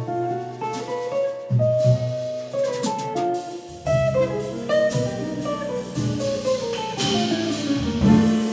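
Jazz quartet playing live: a hollow-body archtop guitar picks a melodic line over double bass, keyboard and drums. A cymbal rings out about seven seconds in.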